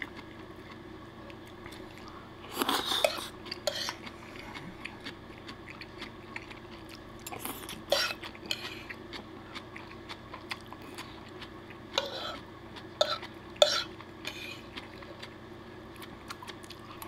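Metal fork scraping and clicking against a wooden plate as the food is scooped up, with chewing in between. The clicks come at irregular moments, loudest about three seconds in and again around twelve to fourteen seconds in.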